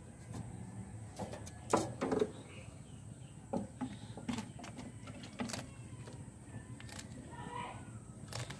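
A palm civet biting and working at a mouse held on wooden slats: scattered sharp clicks and knocks, with a loud cluster about two seconds in.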